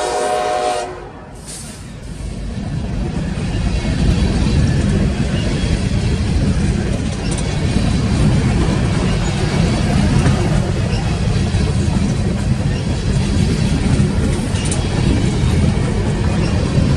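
A BNSF freight train's horn cuts off just under a second in. After a brief lull, the steady, loud low rumble of the coal train rolling past builds and holds.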